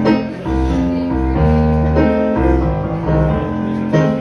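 Live blues music on a Nord Stage 2 stage keyboard: piano-style chords over a low bass line, with the bass notes moving in a steady pulse.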